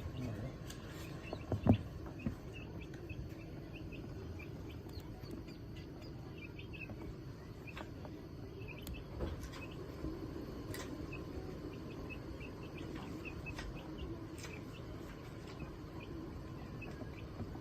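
Call ducks making soft, scattered little peeps and chirps over a low steady background, with a sharp knock about two seconds in.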